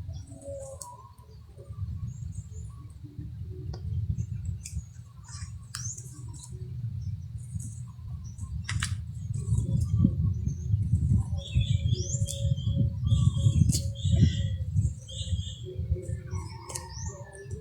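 Birds chirping, many short quick upward-sweeping calls, over a low rumbling noise that grows louder past the middle.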